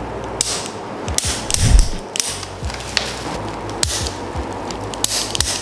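Scattered sharp clicks and knocks, with one heavier thump just before two seconds in, from hands-on chiropractic work on the jaw.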